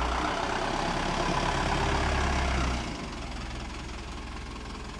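The diesel engine of an Asa Coast Railway dual-mode vehicle (DMV) minibus driving away in road mode, passing close by. It is loudest for the first three seconds or so, then drops off as the bus moves away.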